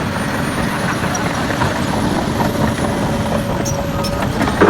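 Plastic toy bulldozer pushed along a surface, its wheels rolling with a steady, rattling noise. There is a sharper knock near the end.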